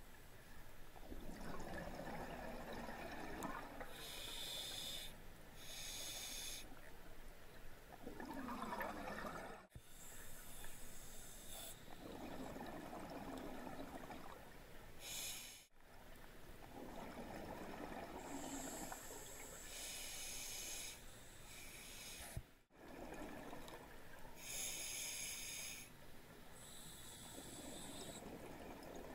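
A scuba diver breathing through a regulator underwater: slow repeating cycles of a hissing breath and a rush of exhaled bubbles, each breath several seconds long.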